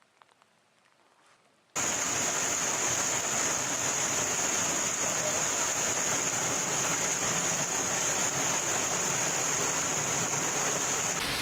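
Heavy storm downpour falling in a steady roar that cuts in abruptly about two seconds in, after a few faint scattered drips. A steady high-pitched whine runs over it and stops near the end.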